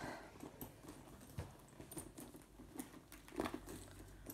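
Faint handling sounds of a handbag being picked up and lifted by its handles: soft rustles and a few light clicks and knocks, the most noticeable about three and a half seconds in.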